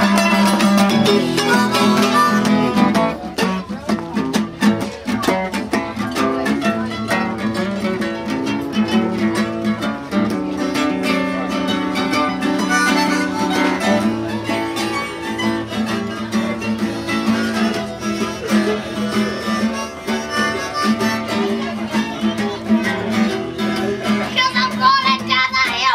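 A jug band playing blues live, with long held notes over steadily plucked strings.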